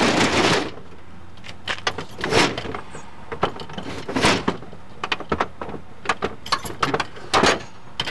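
A loud rush of noise that cuts off under a second in, then scattered clicks, knocks and rattles of things being handled.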